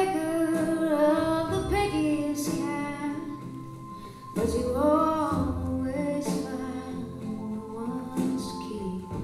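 A song: a woman sings two long drawn-out phrases over soft accompaniment, the second phrase starting about four seconds in.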